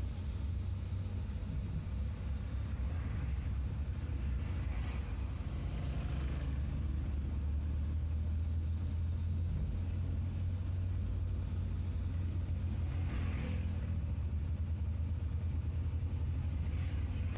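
Steady low rumble of a vehicle's engine and road noise, moving slowly in climbing traffic. Brief hissing whooshes come through now and then, the loudest one about two-thirds of the way in, as oncoming traffic passes.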